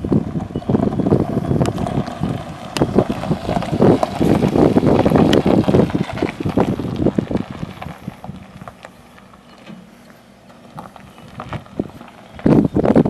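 Wind buffeting the microphone, heavy and crackling for the first several seconds, easing off, then a sharp gust near the end, over a faint steady low hum.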